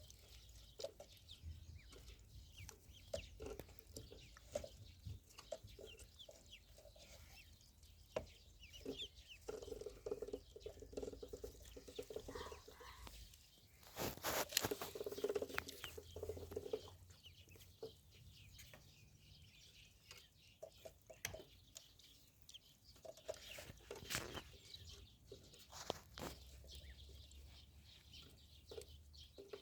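Ducklings peeping on and off, mixed with scattered light taps, with a louder noisy stretch about halfway through and another brief burst near the end.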